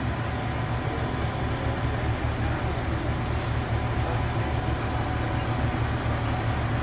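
Oshkosh Striker crash tender's large diesel engine running with a steady low rumble as the truck rolls slowly forward.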